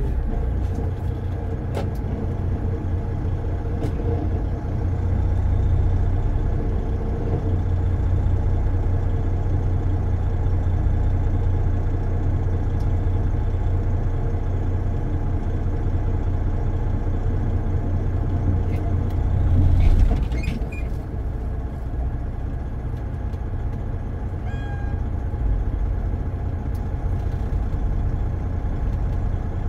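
Car driving on city streets: a steady low rumble of engine and tyres on the road, swelling briefly to a louder rush about twenty seconds in.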